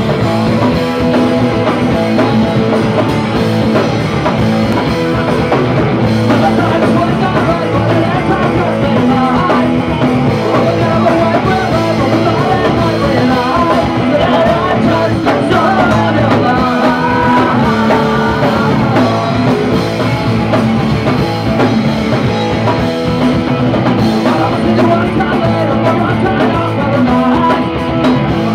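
Live punk rock band playing loud: electric guitars and drum kit, with a man singing.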